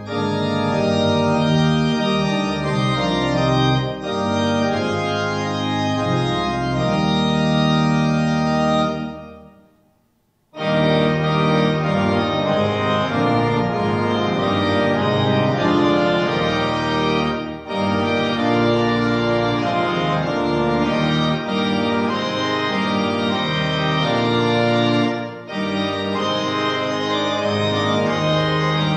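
Organ music playing sustained chords. It fades out about nine seconds in, and after about a second of silence the music starts again abruptly.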